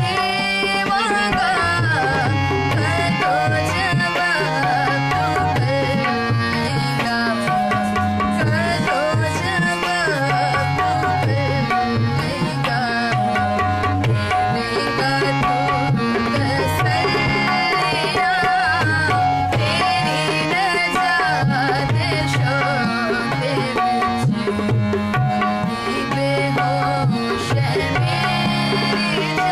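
A woman singing a devotional worship song, accompanied by a tabla keeping a steady beat and a harmonium holding sustained chords.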